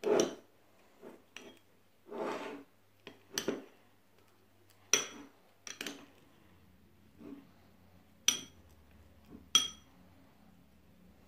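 A metal spoon stirring ice cream in a small glass bowl. It makes intermittent scrapes and a few sharp clinks against the glass, some of which ring briefly.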